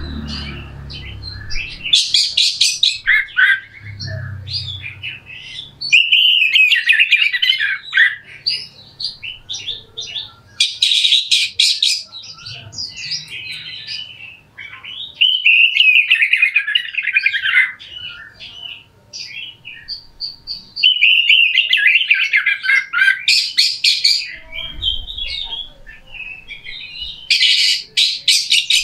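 Oriental magpie-robin (kacer) singing a long, rough song, with varied warbled phrases broken by harsh rasping rattles about every few seconds.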